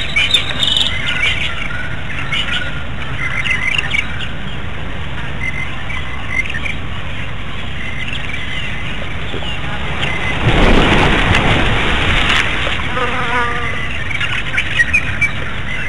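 Birds chirping and insects buzzing over a steady low hiss, with a two-second rush of noise about ten seconds in.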